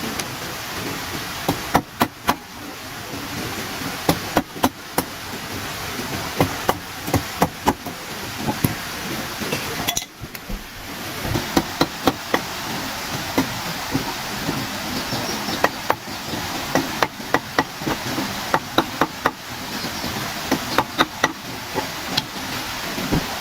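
Irregular series of sharp blows of a hand tool on wood, coming in quick clusters over a steady background hiss, with a short break about ten seconds in.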